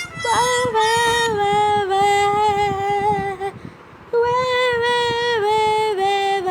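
A funny ringtone playing: a high, sung-sounding voice holding long notes that step downward in pitch, in two phrases with a short break in the middle.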